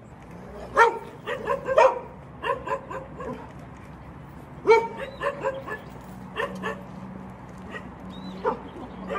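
A white dog giving repeated short yips and whines, excited and playful as it jumps up at the person playing with it.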